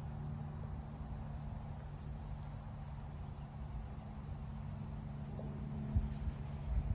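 Steady outdoor background noise with a low hum, broken by a couple of low thumps near the end.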